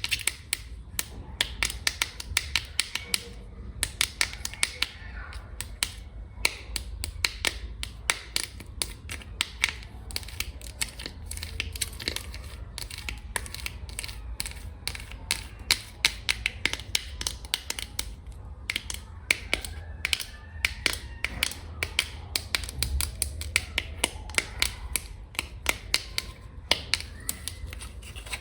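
Long fingernails tapping fast on a hard surface: a dense run of sharp clicks, several a second, in irregular bursts with a few short pauses.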